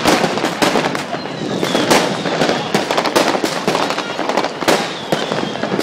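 Fireworks and firecrackers going off in large numbers: a dense, unbroken crackle of overlapping bangs and pops, with a faint whistle twice.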